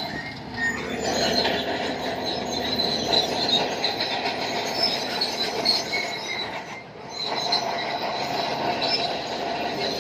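Bulldozer's steel crawler tracks squealing and clanking as it works, with the loudness dipping briefly about half a second in and again around seven seconds.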